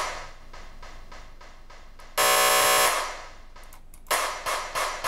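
A drum sample is played back on loop in a sample editor, the looped section repeating as a stutter about four times a second. About two seconds in, a very short loop turns into a loud, steady buzz for under a second. A faster stutter returns about four seconds in.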